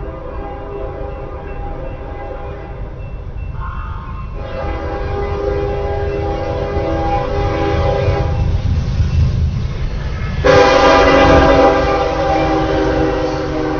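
Locomotive horn sounding several long blasts over the low rumble of an approaching train, heard through a doorbell camera's microphone. The blasts grow louder, and the last, about ten seconds in, is the loudest.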